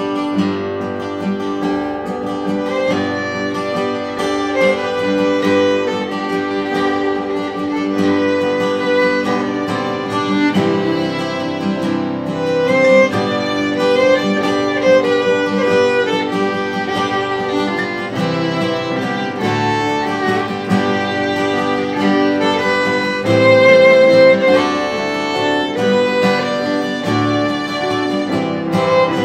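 Instrumental break in a folk song: a violin plays the lead melody over two acoustic guitars.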